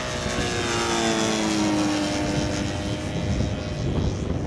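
Engines of a radio-controlled model Avro Lancaster bomber running as it makes a low pass, their several tones dropping in pitch as it goes by.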